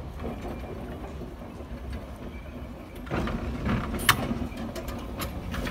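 Montreal Tramways car 2001, an old streetcar, rolling slowly on curved track: a steady low rumble of wheels and running gear that grows louder about three seconds in, with a few sharp clicks and clanks near the end.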